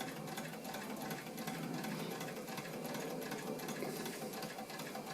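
Wilesco D455 toy steam engine running unloaded under its own steam, with a fast, even beat of exhaust chuffs and mechanical clatter.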